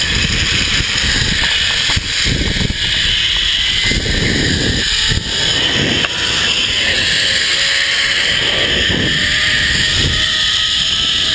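Zipline trolley pulleys running along the steel cable, a faint whine rising slowly in pitch as speed builds, under a steady rush of wind on the microphone.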